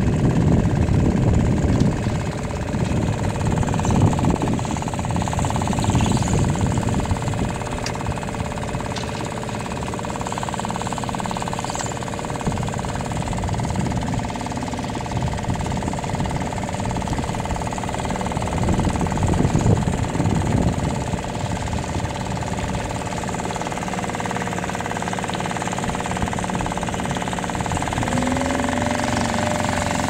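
Small dinghy outboard motor running steadily, with gusts of wind buffeting the microphone; the motor's pitch shifts near the end.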